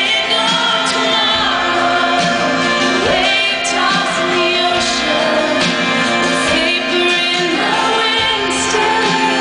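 Live band playing in an arena, with a woman singing lead into a microphone over guitars and drums, heard through the PA from the audience.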